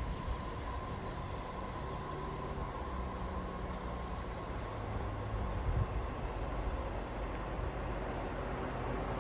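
Approaching diesel train: a steady low engine rumble that grows a little louder near the end, with faint high chirps above it.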